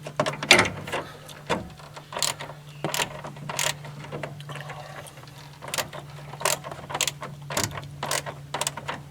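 Irregular clicking and clacking of hand-tool work on the plastic insert fasteners of a radiator fan shroud, over a steady low hum.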